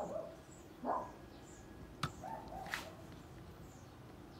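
A dog barking a few short times, with two sharp clicks about two seconds in.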